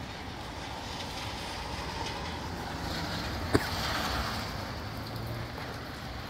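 Wind rushing through trees with rain falling, a steady hiss that swells for a second or two a little past halfway. A single sharp click sounds about halfway through.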